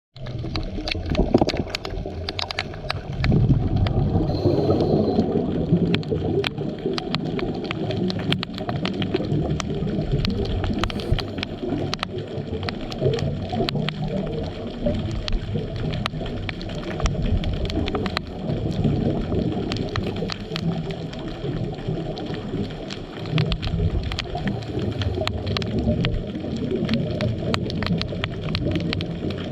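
Underwater ambience picked up by a GoPro in its dive housing: a low, uneven water rumble with many scattered sharp clicks and crackles.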